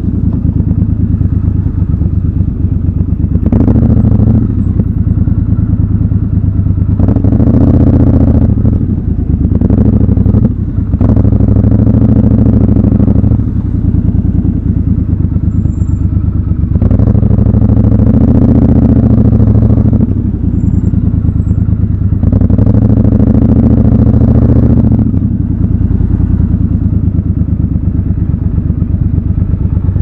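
Triumph Scrambler 1200 XC's 1200 cc parallel-twin engine running at low speed, rising in several short bursts of throttle and dropping back to a low, even run between them.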